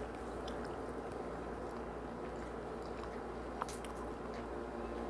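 Close-up eating sounds: hands picking apart boiled crab and shrimp, with soft squishing, small cracks of shell and chewing. One sharper click about three and a half seconds in.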